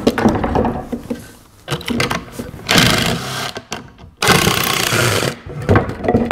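Power driver running in two bursts of about a second each, backing screws out of the rocker stretchers, with a few wooden knocks before them.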